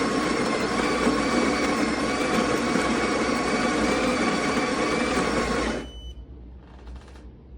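Breville Barista Touch espresso machine running with a loud, steady mechanical buzz, which cuts off suddenly about six seconds in.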